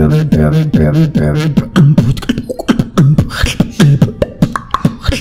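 A beatboxer's deep-throat 'robot voice' beat: a low, gravelly held vocal tone broken by quick downward pitch drops and sharp kick and snare clicks in a steady rhythm.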